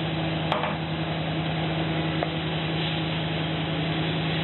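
Steady kitchen hum and hiss while vegetables fry in a pan over a lit gas burner, with a light click about half a second in and a fainter one about two seconds in.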